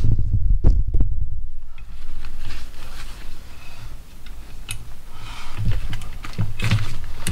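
Cliq camping chair being assembled by hand: its metal frame poles clicking and knocking as the nylon seat is pushed onto them, with fabric rustling and low thumping handling noise. A few sharp clicks come in the first second, and scattered knocks and rustles follow later.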